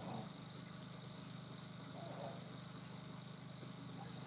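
Quiet room tone with a faint steady low electrical hum, and a soft draw on a cigarette right at the start.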